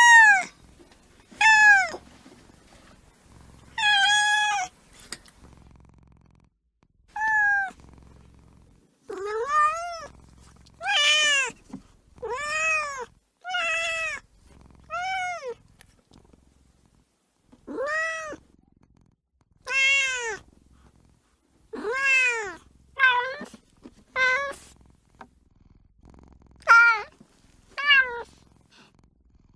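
A kitten meowing over and over, about eighteen short, high-pitched meows at irregular intervals, each rising and then falling in pitch.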